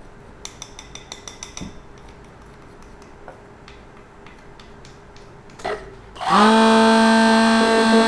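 SAYESO hand-held immersion blender switching on about six seconds in, spinning up and then running at a steady whine as it mixes the powder into the liquid. Before it, a run of light clicks and taps.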